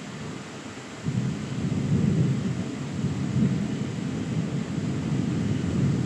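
Thunder rumbling low and long, swelling about a second in and rolling on; about three miles away by the speaker's reckoning.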